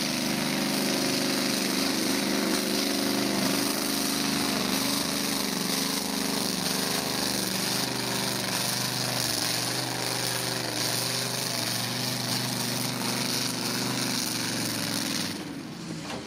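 Modified pulling-tractor engine running flat out under heavy load as it drags a weight-transfer sled, its pitch wavering as it labours. The engine sound drops away about a second before the end.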